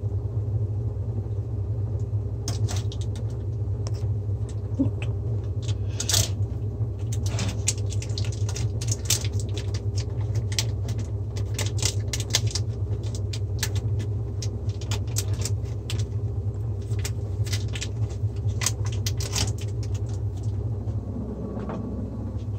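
Crackling and clicking of the plastic film lid and tub of a pack of momen tofu being picked at and peeled open over a stainless steel sink, over a steady low hum.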